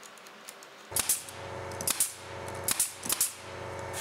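A steady motor-like hum with sharp clicks in pairs, about three pairs, roughly once a second, while a bolt is worked into a threaded insert in a plywood arm.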